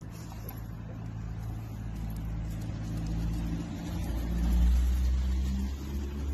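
A motor vehicle's engine runs as a steady low rumble nearby, growing louder about four seconds in and then easing off, as if a car is passing.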